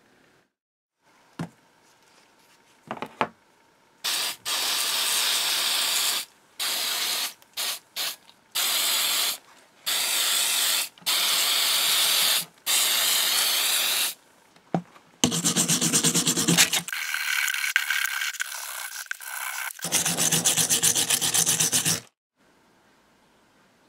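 Aerosol paint stripper hissing from a spray can in about eight short bursts onto the old paint of cast-iron press parts. This is followed by several seconds of rapid scraping as a hand tool works the softened, foamed paint off the cast-iron lever.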